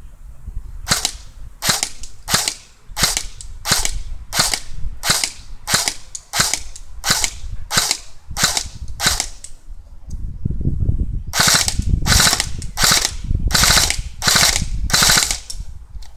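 Airsoft electric gun (D-Boys FN SCAR Heavy replica) firing single shots at a steady pace, about two a second, each a short snap of the gearbox cycling. After a short pause about ten seconds in, a second string of about six shots follows, with a low rumble beneath them.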